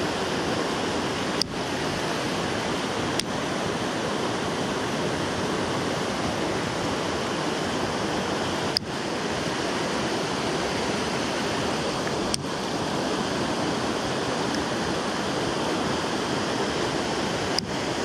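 Mountain stream running high after days of rain, a steady rush of water over stones and riffles. A few short clicks are heard over it.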